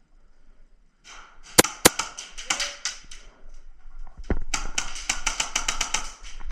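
Airsoft guns firing: two sharp cracks about a second and a half in, a quick spatter of shots, then a long rapid burst of about seven shots a second from about four and a half seconds in until near the end.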